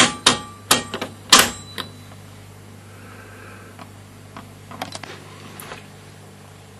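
Sharp clicks of the AVO VCM 163 valve tester's switches being worked: a quick run of about six in the first two seconds, then a few fainter ones a few seconds later. A steady low hum runs underneath.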